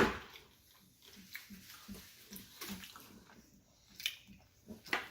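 Close-up wet chewing of a burger, a steady rhythm of about four chews a second, with a sharp click right at the start.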